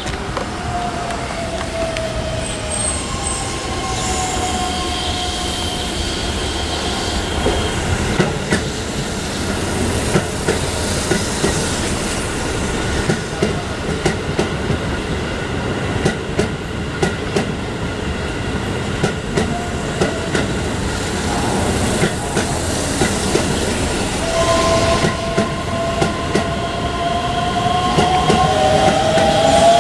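Keihan 3000-series electric train passing through without stopping, rolling through the points: its wheels clack irregularly over the rail joints and crossings while long whining tones slide slowly in pitch, growing louder near the end.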